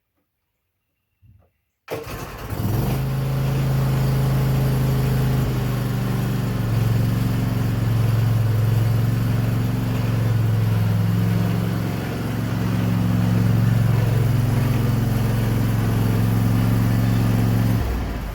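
Zero-turn riding mower engine running steadily, cutting in abruptly about two seconds in, its pitch shifting slightly a few times, then fading away near the end.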